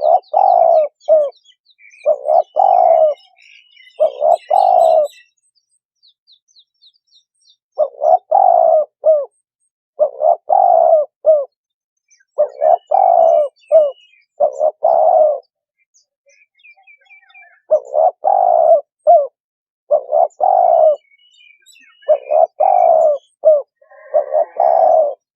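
Spotted dove cooing: about a dozen short phrases of a few low notes each, a second or so apart. Faint chirps of small birds sound in the background.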